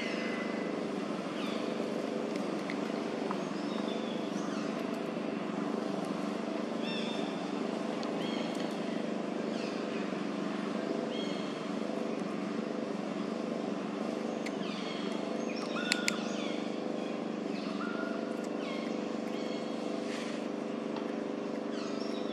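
A steady engine hum, with short bird chirps over it every second or two and two sharp clicks about sixteen seconds in.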